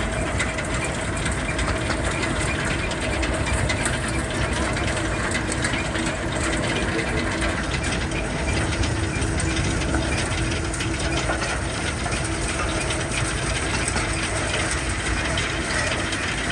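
Steady noise of sawdust-pellet factory machinery running, a constant rattling din with a faint hum underneath.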